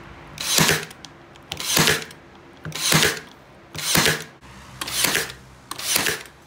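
Ryobi AirStrike cordless nailer firing six times, about once a second, each shot a short whoosh and snap as it drives a nail into pine boards.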